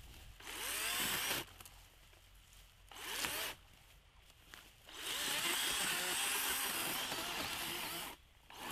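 Battery-powered chainsaw cutting brush in bursts: two short runs with the motor pitch rising and falling, then a long cut of about three seconds, and another run starting near the end.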